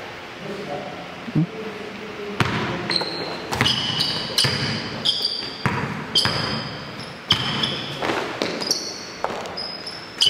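A basketball being dribbled and bounced on an indoor court, with a series of sharp bounces starting about two and a half seconds in. Short high-pitched sneaker squeaks come with many of the bounces.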